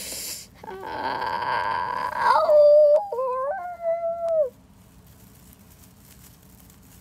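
Creature-like cries made with a voice. There is a short hiss at the start, then a rasping screech about a second in, then a wavering wail that breaks and jumps in pitch and stops about halfway through.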